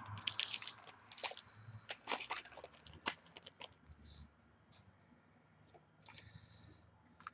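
Trading cards and a pack wrapper being handled: crinkly rustling and small clicks. It is busy for the first few seconds, then thins out to a few soft taps.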